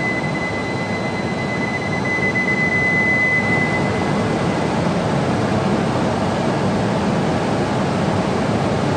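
E6 Series Shinkansen train's steady rushing running noise, echoing in an underground station, as it begins to pull out. A single steady high tone sounds over it and stops about three and a half seconds in.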